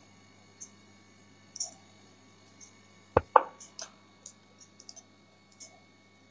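Computer mouse clicking: two sharp clicks about three seconds in as a chess piece is picked up and dropped on screen, then a few lighter clicks. Faint ticks about once a second and a low mains hum sit underneath.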